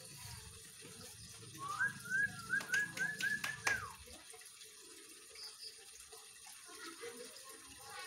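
White-rumped shama singing a quick phrase of about six repeated, upward-hooked whistled notes mixed with sharp clicks, about two seconds in, then falling quiet.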